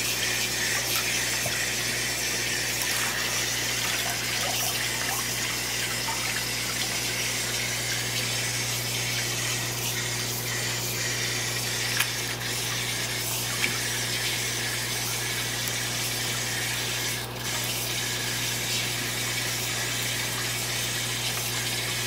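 Water pouring and splashing steadily into a bait-shop minnow tank, over a steady low pump hum, while shiners are netted out; a couple of brief splashes or knocks about halfway through.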